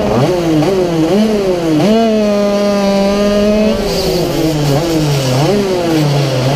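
Racing kart engine heard onboard, revving up and down through corners: the pitch dips and climbs several times, holds steady at high revs for about two seconds on the straight, then drops sharply and picks up again.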